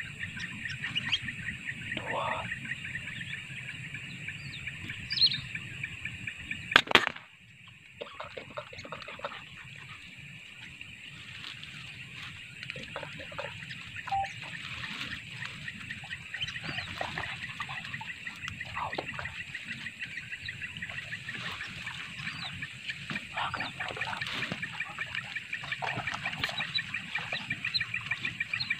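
A sharp, loud double crack about seven seconds in, an air rifle shot at whistling ducks. Under it runs a steady, high, fast-pulsing chorus of evening insects, with scattered short bird calls.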